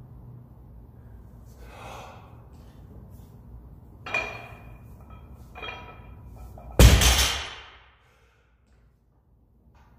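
Barbell loaded with 350 lb of bumper plates set back down on the gym floor after a deadlift rep: one heavy thud with a metallic clank about seven seconds in, ringing out over about a second. Before it come fainter knocks and rattles of the bar and plates during the pull.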